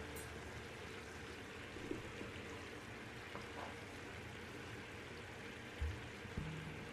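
Sugar syrup boiling in a pan, a steady fizzing bubble, as it is cooked down toward one-string consistency. A low thump near the end.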